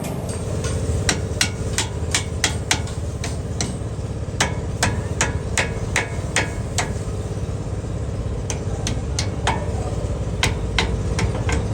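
Hammer blows on metal, about two to three a second in runs with a short pause midway, over a steady low hum.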